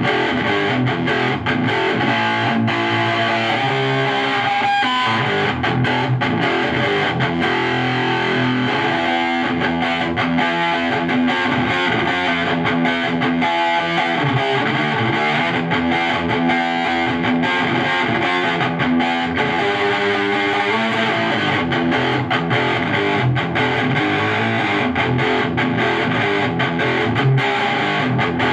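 Electric guitar played continuously through a TS-9 Tube Screamer-style overdrive pedal into a tube amplifier, giving a distorted, crunchy tone as notes and chords follow one another without a break.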